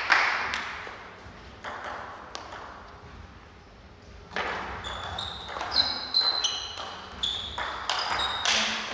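Table tennis ball in play: sharp clicks of the celluloid ball off rackets and table, a few near the start and then a fast rally of clicks from about four seconds in, with short high squeaks during the rally.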